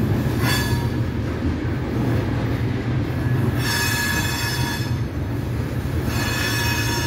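Freight train of tank cars rolling slowly past with a steady low rumble, the wheels squealing against the rails in high-pitched spells: briefly about half a second in, for over a second in the middle, and again near the end.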